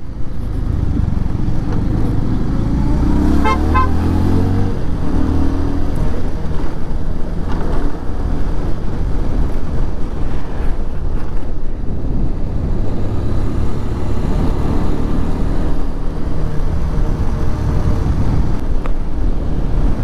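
Bajaj Pulsar 150 motorcycle riding along a hill road: steady engine and wind rumble throughout. A vehicle horn toots briefly about three and a half seconds in.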